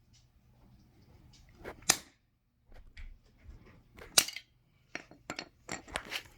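Two sharp hammer strikes on a die-cast metal toy truck, a little over two seconds apart, with several lighter clicks and knocks in between and after.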